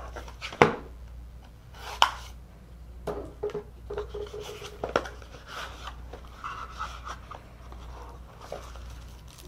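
Folding knife slitting the seal stickers on a small cardboard phone box, then the box lid opened and the contents handled: sharp clicks and scratchy rubbing of cardboard and plastic, with two of the sharpest clicks in the first two seconds.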